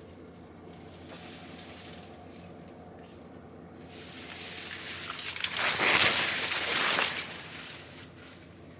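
Corn leaves rustling and brushing as someone pushes down a row of tall corn. The rustling swells to its loudest about five to seven seconds in, over a faint steady low hum.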